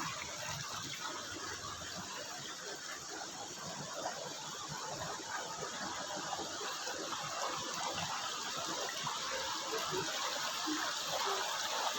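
Steady rush of water spilling over rocks from a small hill waterfall that has nearly dried up, with only a little water still falling.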